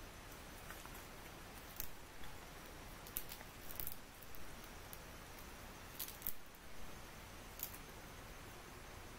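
Newly lit campfire crackling: a handful of sharp pops and snaps at irregular intervals over a steady faint hiss.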